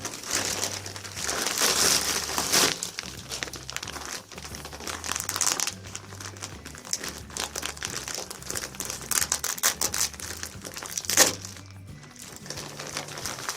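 Packaging crinkling as a pack of wool is handled and opened, in irregular rustles with a sharp crackle about two seconds before the end.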